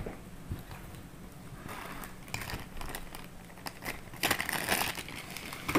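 Clear plastic parts bag crinkling as it is handled, with louder crinkling about four seconds in.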